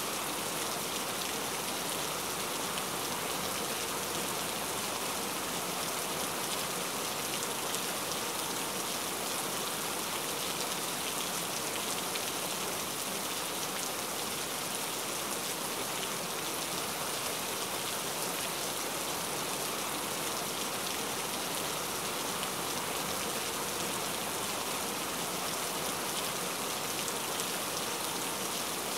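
Steady rain ambience: a constant, even patter of many drops that does not let up or change.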